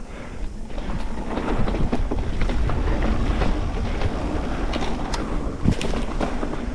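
Mountain bike rolling along a dirt singletrack: steady rumble of the tyres on the dirt with frequent clicks and rattles from the bike, louder from about a second in.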